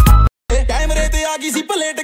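Background music: a track with a heavy bass beat cuts off abruptly about a third of a second in. After a brief silence, a different song with a melody line starts.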